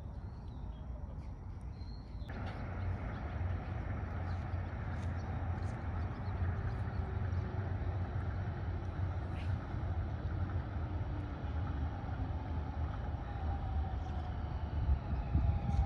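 Monorail train running on the elevated track: a low rumble that gets suddenly louder about two seconds in, with a motor whine slowly falling in pitch toward the end.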